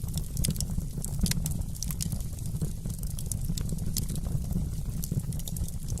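Wood fire crackling in a fireplace: frequent sharp pops and snaps, irregularly spaced, over a steady low rumble of the burning fire.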